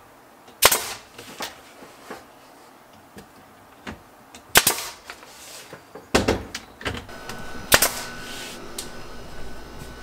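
Cordless brad nailer firing nails into the wooden shelf trim: four loud, sharp shots a couple of seconds apart, with quieter clicks and knocks of the tool and wood between them.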